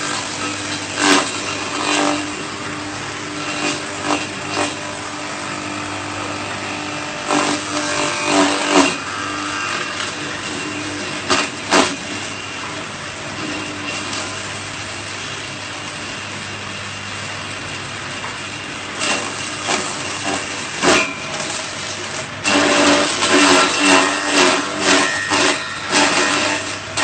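Electric grass chopper running with a steady motor hum. Irregular bursts of chopping come as grass stalks are fed in, turning denser and louder in the last few seconds.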